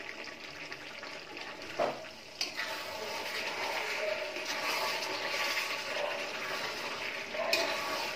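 Chicken curry sizzling and bubbling hard in a large aluminium kadai over a high flame as its water is cooked off, with a metal ladle stirring and scraping through it. The hiss grows louder about two and a half seconds in, and there are a few short knocks of the ladle against the pan.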